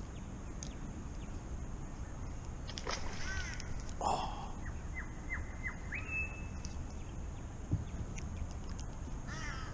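Wild birds calling over a steady low background rumble. A quick run of falling chirps comes about three seconds in, and a short noisy burst just after. Then come four short whistled notes and a held, slightly higher whistle.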